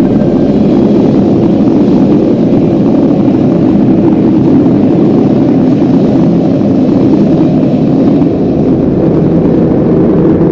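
Loud, steady Lamborghini engine sound played over the hall's sound system during a sound show: a dense, pitchless rumble with a slight dip in loudness about eight seconds in.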